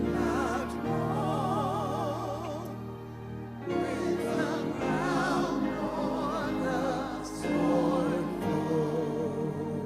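Church music: singing with a wide vibrato over held accompaniment chords that change every few seconds.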